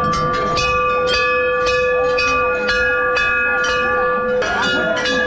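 Brass temple bells struck again and again, about two strokes a second. Several bells of different pitches ring on over one another above the murmur of a packed crowd.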